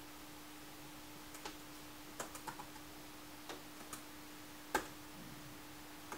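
Light, scattered key clicks from typing, about seven taps with the strongest near the end, over a faint steady electrical hum.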